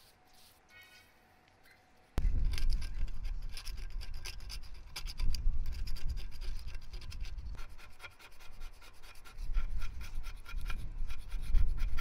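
Hand paint scraper scraping old red paint off the cast-iron base of a drill press: quick scratchy strokes with a faint squeak, starting abruptly about two seconds in.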